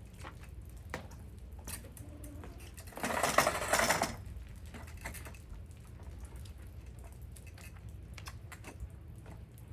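Water hissing out of a hose in a spray for about a second, three seconds in, amid scattered light ticks and drips during a truck wash.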